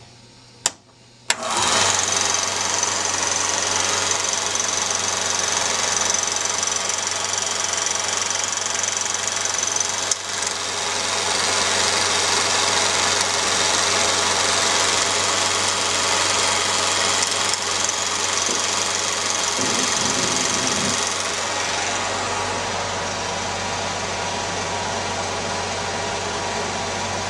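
Kalart Victor Model 65-10 16mm sound projector switched on with two sharp clicks about a second in, then running steadily as film is driven through the mechanism. It eases slightly quieter near the end.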